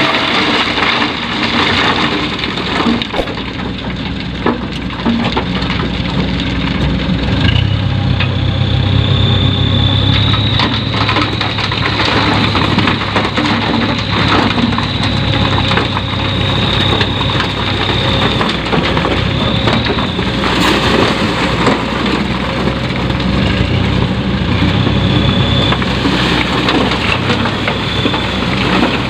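Dump truck's engine running steadily, then working harder about a quarter of the way in as it drives the hydraulic hoist that tips the loaded bed. A thin, steady high whine runs for a while over the engine.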